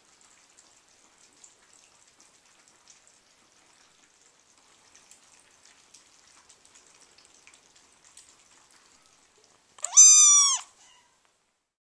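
Eight-week-old orange kitten giving one short, loud meow near the end, its pitch rising slightly then falling. Before it, faint scattered ticks and crunches of a litter of kittens eating dry food from bowls.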